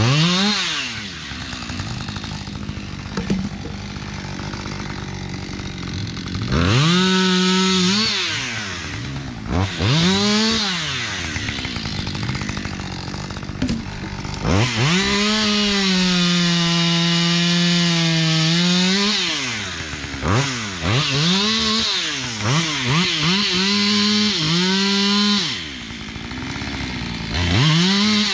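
Two-stroke chainsaw idling between cuts and revved up to full throttle several times: a couple of short revs, one long high-pitched run of about five seconds in the middle as it cuts through wood, then a quick string of short revs near the end.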